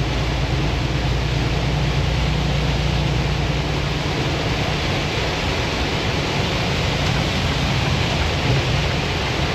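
Heavy rain and wet-road spray rushing steadily inside a moving semi truck's cab, over the low drone of the truck's engine. The engine drone eases off about four seconds in.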